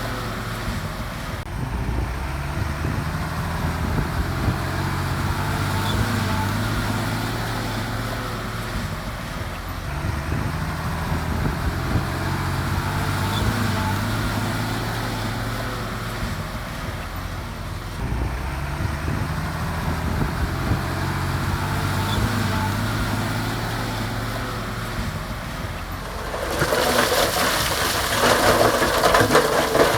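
Bulldozer's diesel engine working, its pitch rising and falling in cycles about every eight seconds. Near the end a loud crunching of gravel begins.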